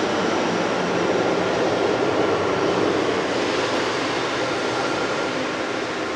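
Boeing 777-300ER's GE90-115B turbofan engines running steadily as the airliner taxis, a continuous jet noise with faint high whining tones in it.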